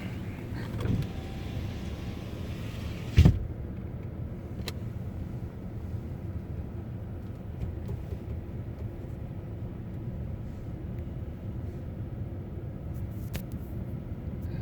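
Steady low rumble throughout, with one sharp, loud thump about three seconds in, after which the high hiss drops away.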